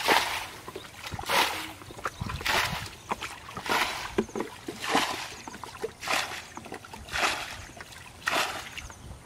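Muddy water being scooped from a shallow pool with a black plastic bucket and thrown out, a splash about once a second as the pool is bailed out, eight splashes in all.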